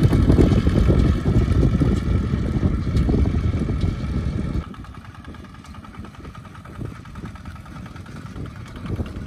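Single-cylinder diesel engine of a two-wheel walking tractor running steadily under load as it pulls a trailer across a field. About four and a half seconds in, the sound drops suddenly to a quieter, more distant engine of the same kind.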